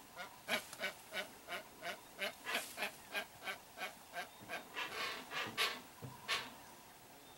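Hoatzin giving a run of short, harsh calls, about three a second, which stops about six seconds in.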